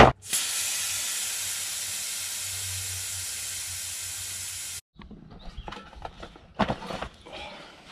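Air hissing out of a mountain bike tyre as it is deflated: a loud, steady hiss that slowly fades and stops abruptly a little before halfway. It is followed by clicks and knocks of the tyre being worked off the rim, one sharp knock among them.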